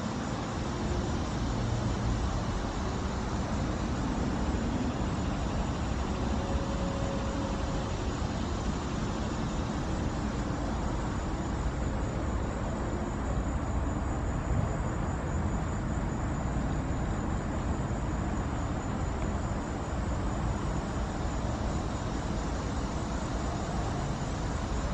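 Steady low background rumble of distant road traffic.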